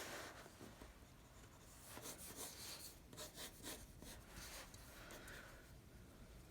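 Faint scratching of a drawing tool across the drawing surface, in short, irregular strokes.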